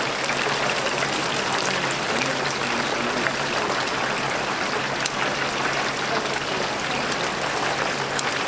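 Battered chicken pieces deep-frying in hot oil: a steady sizzling hiss of bubbling oil, with a few sharp ticks.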